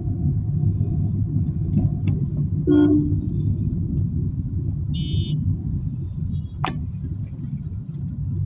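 Steady low road-and-engine rumble inside a moving car's cabin. A short vehicle horn toot sounds about three seconds in, and a brief higher-pitched horn beep about five seconds in.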